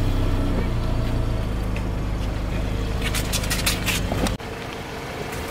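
A car engine hums at low speed while a tyre rolls over small milk packets, with a quick run of crackles and pops about three seconds in. A little after four seconds the hum drops away abruptly to a quieter background.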